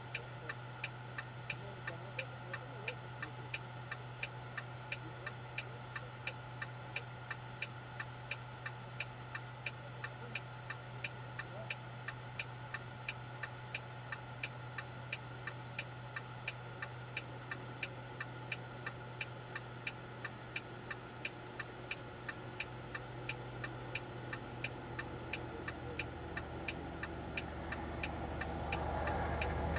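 Hazard-light flasher in a truck cab clicking steadily, about two and a half clicks a second, over a steady low hum. Over the last few seconds another vehicle approaches and grows louder.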